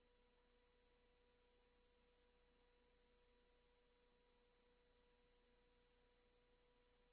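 Near silence: faint hiss with several faint steady tones held unchanged.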